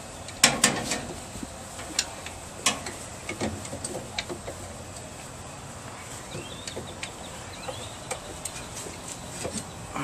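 Scattered metallic clicks and clanks of hands and a screwdriver working on the motor and wiring inside an old washing machine's cabinet, loudest in a quick cluster about half a second in, then sparser.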